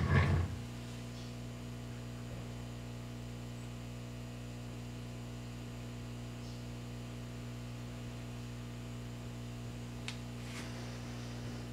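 Steady electrical mains hum. A brief mechanical clatter of metal parts sounds right at the start, and two faint ticks come near the end.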